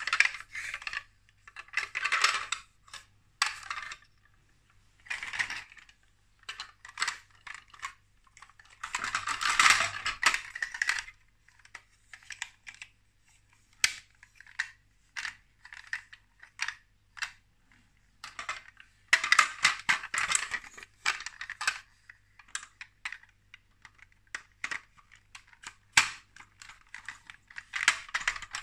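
Plastic Lego Duplo truck parts being handled and pressed together: a run of sharp clicks and taps, with longer clattering rattles about ten seconds in and again about twenty seconds in.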